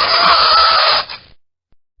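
Fingernails scratching across a chalkboard: a loud, rasping scrape with a wavering squeal in it that stops about a second in.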